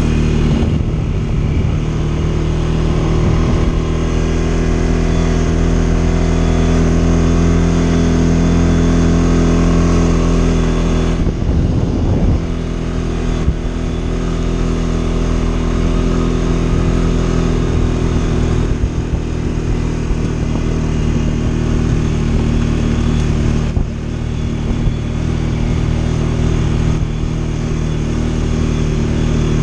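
CFMoto CForce 550 ATV's single-cylinder engine running steadily as the quad rides along a trail, the engine note easing briefly a few times.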